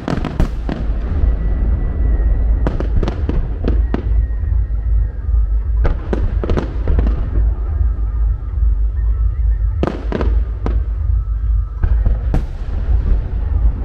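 Starmine fireworks shells bursting in quick groups of sharp bangs, a new group every few seconds, over a continuous low rumble.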